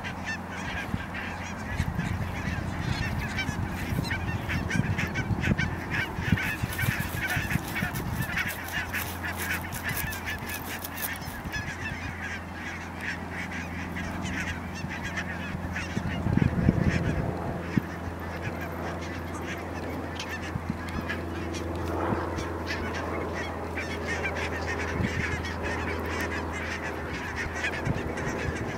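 A large flock of barnacle geese calling all at once, a dense chatter of many short calls that is thickest in the first half. A brief low rumble about halfway through.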